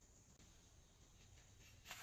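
Near silence: room tone, with a faint brief rustle near the end.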